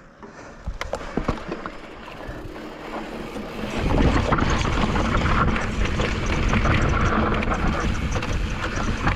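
YT Decoy electric mountain bike riding over a rough, rocky dirt trail: a few sharp clicks and knocks at first, then from about four seconds in a loud, steady rush of wind on the microphone mixed with tyre rumble and rattling over the rocks.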